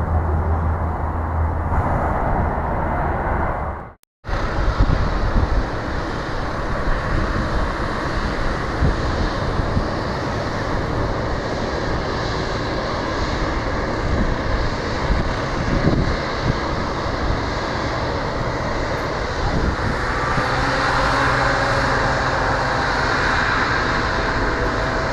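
Jet airliner engines running: a steady rumble and hiss, broken by a brief dropout about four seconds in. A higher engine whine builds about twenty seconds in and holds.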